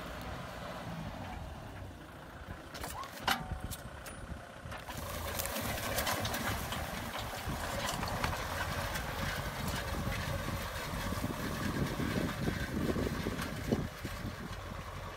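Kubota M6040SU tractor's diesel engine running under load, pulling a disc plow whose discs scrape and clatter through dry soil. There is a sharp knock about three seconds in, and the sound grows louder and rougher from about five seconds on.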